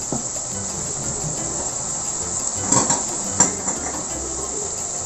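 Mapo tofu sizzling steadily in a frying pan, with a few short knocks of a wooden spatula against the pan about three seconds in.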